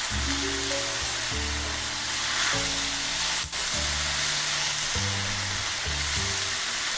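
Vegetable stir-fry sizzling in a hot pan while its cornstarch-thickened soy and sesame sauce cooks down, a steady frying hiss. A single sharp tap about halfway through, with background music underneath.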